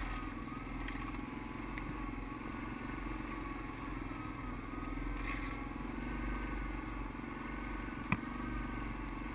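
ATV engine running steadily under load as the quad climbs a rough hillside, heard from on board, with rattles from the machine. A single sharp knock about eight seconds in.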